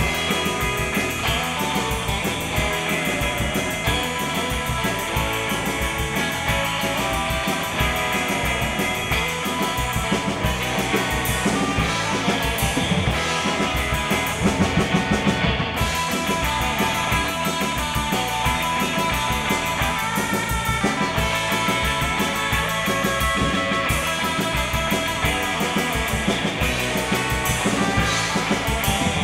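Rock music with guitar and a drum kit keeping a steady beat.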